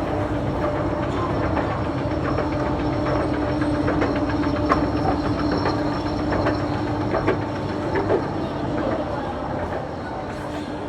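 Steady low rumble of a moving vehicle with a constant hum and many light clicks and rattles.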